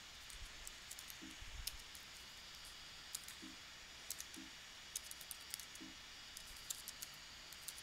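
Faint typing on a computer keyboard: scattered light key clicks, irregularly spaced.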